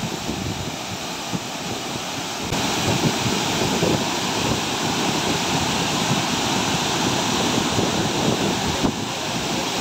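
Waterfall: a steady, loud rush of white water pouring over rocks, stepping up in loudness about two and a half seconds in.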